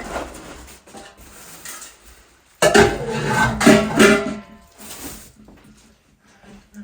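Plucked string instrument playing a short phrase, loudest a little before the middle and then trailing off into a few softer notes.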